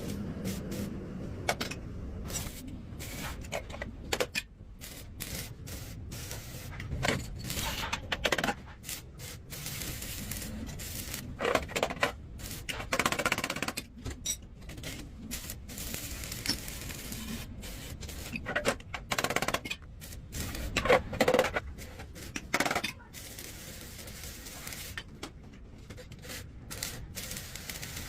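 Workshop handling noise from bicycle frame and parts work: irregular clacks, knocks and scrapes of parts and tools, with louder clusters of clatter about two-fifths of the way in and again about three-quarters through.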